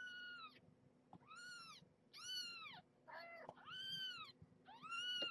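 Two-week-old kitten mewing about six times, high thin arched calls each under a second long, the one near the middle lower and rougher than the rest.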